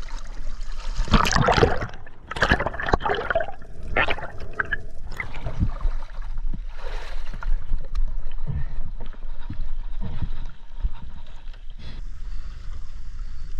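Seawater splashing and gurgling close to the microphone, in irregular bursts that are loudest a second or two in, over a steady low rumble.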